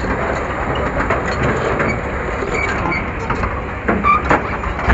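Excavator's diesel engine running under load, with a heavy rumble and repeated metallic clanks and knocks, the loudest about four seconds in.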